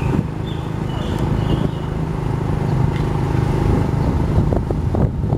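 Motorbike engine running steadily while being ridden down a street, a continuous low hum under road and wind noise.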